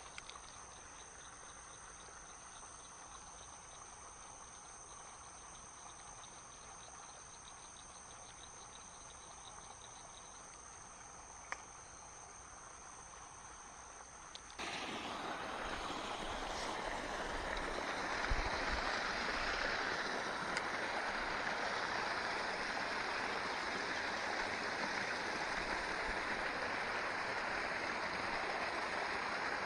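Faint steady high insect buzzing with light pulsing chirps and a single small click. About halfway it gives way abruptly to a louder steady rush of running water, a shallow creek trickling into a pool.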